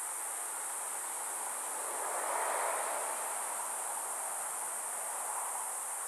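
Steady high-pitched chorus of insects. A soft rushing noise swells briefly beneath it about two seconds in.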